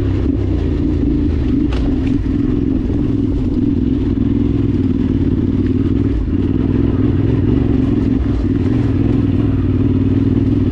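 Yamaha Ténéré 700's parallel-twin engine running at a steady cruising speed, with wind rush over the rider.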